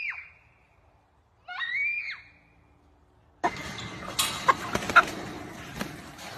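A child's short, high-pitched shrieks, rising and falling: the tail of one at the start and another about a second and a half in. About three and a half seconds in, the sound switches abruptly to a steady rustling noise with several sharp knocks.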